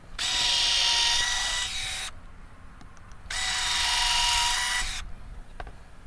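Cordless drill running into a pallet-wood hive box in two bursts of about two seconds each, with a short pause between them.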